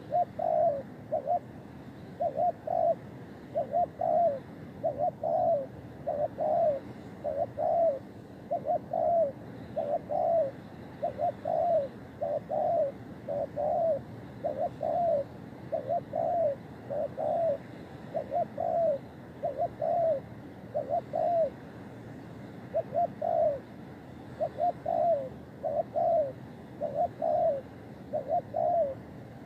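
Spotted dove cooing over and over: short, evenly repeated coos at roughly one a second, running in twos and threes, with one brief pause about three-quarters of the way through.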